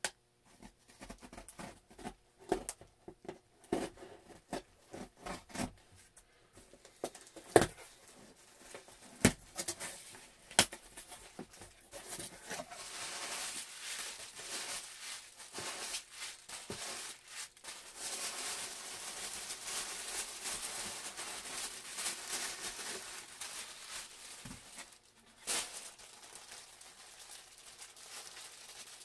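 Unboxing a mail-order package: a cardboard box is opened and handled with taps and a few sharp knocks, then packing paper and a plastic bag crinkle and rustle at length as the wrapped cap is pulled out, with one sharp click near the end.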